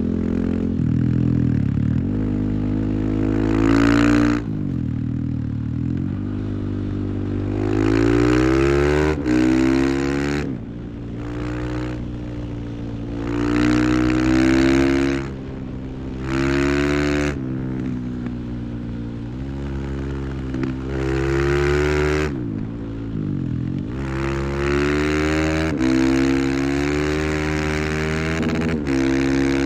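Husqvarna FE 501's single-cylinder four-stroke engine revving hard and easing off over and over under heavy throttle. Its note climbs and drops every few seconds, with a few sudden short breaks.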